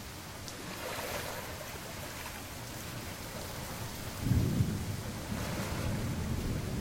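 Steady rain falling, with a low rumble of thunder rolling in a little past halfway through and staying loud to the end.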